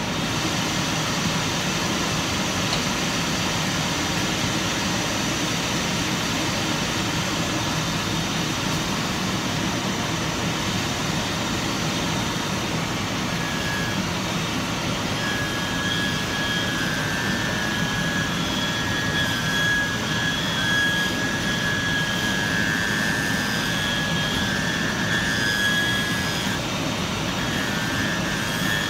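An electric workshop machine's motor running steadily at a loud level. Over the second half a higher whine comes and goes on top of it.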